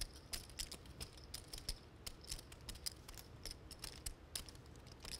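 Faint, irregular clicking of poker chips being handled and riffled at the table, several clicks a second.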